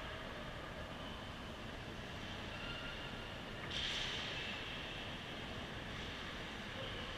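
Indoor ice hockey rink ambience: a steady low rumble and hiss with faint distant play, and a brief louder hissing scrape, like a skate on ice, about four seconds in.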